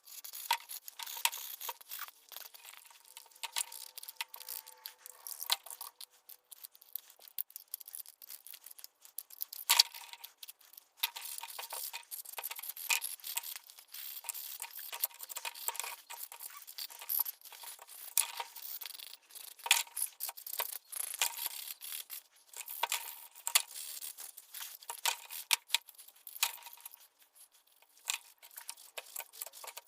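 Irregular hand work on small parts: continuous scraping or brushing strokes mixed with light clicks and ticks, with short pauses around 6 seconds in, 11 seconds in and near the end.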